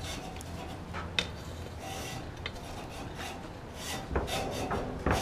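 Blacksmith's coal forge fire burning while an iron vise leg heats in the coals, not yet red: a steady rasping, rushing noise with a few faint ticks.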